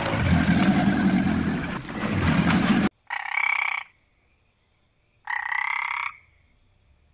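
Sea lion giving a low, rough call for about three seconds, which cuts off suddenly; then a frog croaks twice, each croak just under a second long and about two seconds apart.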